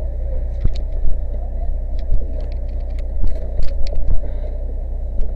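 A fire engine's engine running steadily with a loud low rumble, while scattered sharp metal clanks and knocks come from roof ladders being pulled off the truck.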